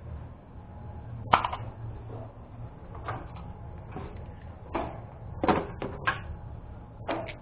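A series of short knocks and clatters, as of tools or objects being handled and set down, over a steady low hum. The first knock, about a second in, is the loudest.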